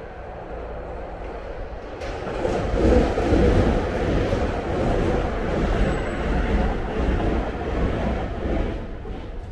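A Keisei Main Line train passing on the nearby track: a steady rush of train noise swells about two seconds in, stays loud, and eases off near the end.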